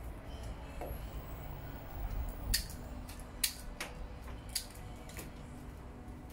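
Florist's scissors snipping: a handful of short, sharp cuts spaced irregularly over a few seconds, against a low room hum.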